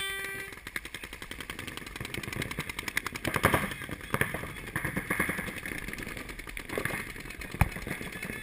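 Paintball markers firing in rapid strings of pops, many a second, from several players at once. A held horn tone, the game's start signal, ends about half a second in.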